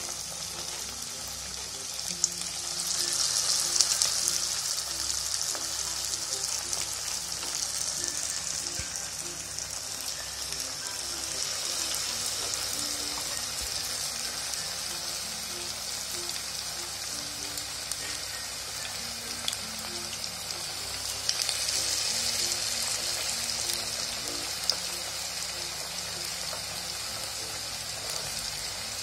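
Vegetable Manchurian balls deep-frying in hot oil in a kadhai: a steady sizzling hiss that swells louder twice, a few seconds in and again past twenty seconds in.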